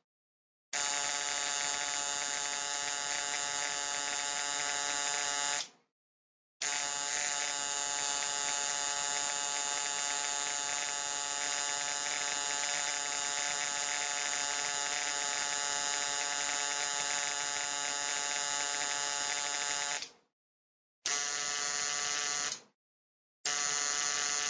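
Low-voltage electric arc buzzing steadily in four separate runs: one of about five seconds, a long one of about fourteen seconds, then two short ones near the end. Each run starts and cuts off abruptly, with silence between.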